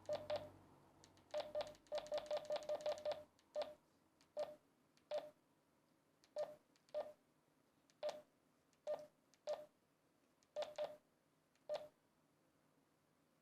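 Key-press beeps from a DMR handheld radio's keypad as a text message is edited: a quick run of short beeps over the first few seconds, then single beeps about a second apart, stopping shortly before the end.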